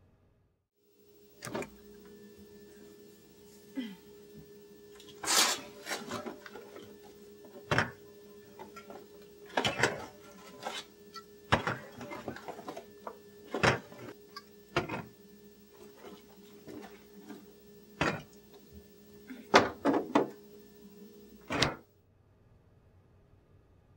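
Objects being handled inside an open refrigerator: a series of sharp knocks and clinks, some in quick pairs, over a steady low hum that cuts off suddenly near the end.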